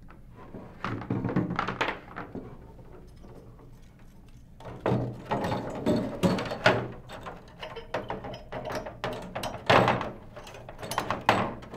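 Irregular knocks, clunks and clicks of hard plastic and metal fittings being handled inside a clear hard-body sampling shroud as a canister is connected and a helium detector fitted. A short burst about a second in, a quieter stretch, then a longer busy run of handling noises.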